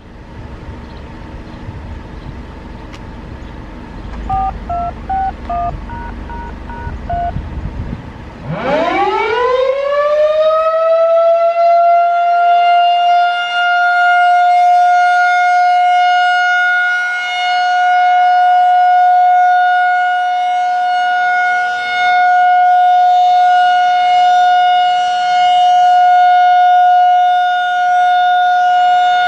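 Federal Signal 2001-SRNDC rotating outdoor warning siren starting up on its Alert test: about eight seconds in it winds up in a rising whine, then settles into one steady high tone. The tone swells and fades every few seconds as the rotating horn sweeps past.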